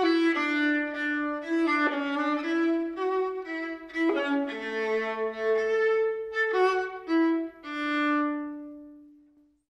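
A bowed string instrument of the violin family plays a short melody of held, connected notes. A lower second line sounds with it for a moment in the middle, and the phrase ends on a long low note that fades away.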